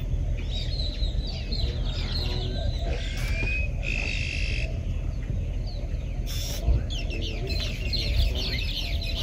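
Many birds chirping and whistling together in a dawn chorus, with one longer, steady whistle about four seconds in, over a steady low rumble.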